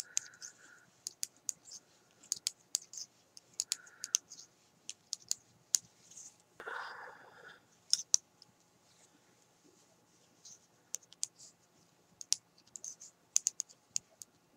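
Metal knitting needles clicking irregularly against each other as stitches are worked, with a short rushing sound about seven seconds in.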